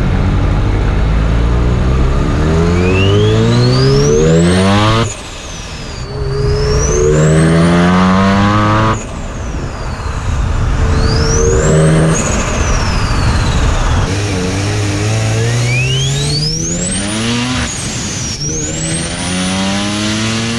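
Mazda FD RX-7's two-rotor rotary engine, fitted with a big BorgWarner single turbo, accelerating hard through several gears, its note climbing with each pull and dropping at each shift. A high turbo whistle rises with the revs and falls away at each gear change.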